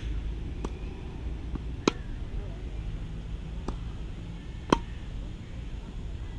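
Tennis rally: sharp knocks of a tennis ball on racket strings and court. The two loudest come about three seconds apart, with fainter knocks between, over a low rumble of wind on the microphone.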